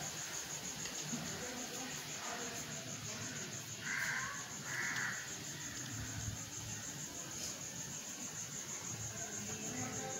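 A crow cawing twice, about four and five seconds in, over a steady high-pitched insect trill.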